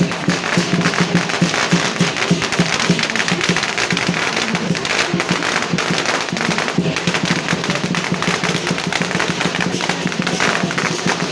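A long string of firecrackers going off in a rapid, unbroken crackle, with music underneath.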